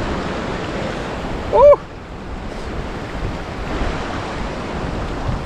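Sea surf washing in steadily, with wind buffeting the microphone. About a second and a half in, one short, loud call rises and falls in pitch.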